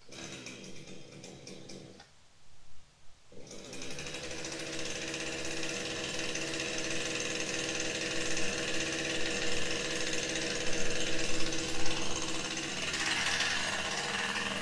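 Two-stroke chainsaw starting and running for about two seconds, cutting out, then starting again about three seconds in and running steadily. It revs higher near the end, at the base of the tree.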